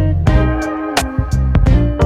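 Background music: an upbeat track with plucked guitar and a bass line over a steady beat.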